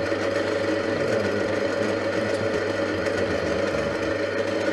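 Small drill press motor running steadily, a fine twist bit turning in the chuck while drilling out a broken thread held in a machine vice.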